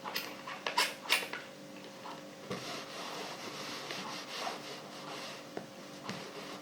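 Clothes iron sliding back and forth over fabric, the cloth rubbing and rustling: a few sharp swishes in the first second and a half, then steadier rubbing strokes over a faint steady hum.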